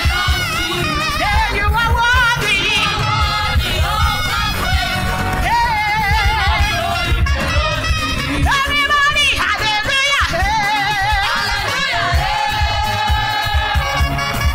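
Church choir singing a gospel song with heavy vibrato, backed by accompaniment with a steady beat.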